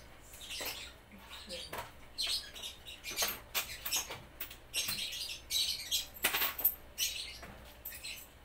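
Irregular rustling and light clattering of small items being handled, in quick short crackles that come thickest about six seconds in.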